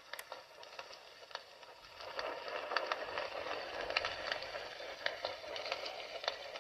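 Fire crackling: a steady hiss dotted with many sharp pops and snaps, growing louder about two seconds in.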